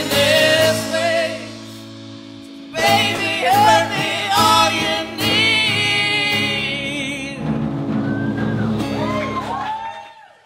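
Live acoustic song: a strummed steel-string acoustic guitar with sung vocals holding long notes. The music drops back about two seconds in, comes in again with hard strums and singing, then fades out near the end.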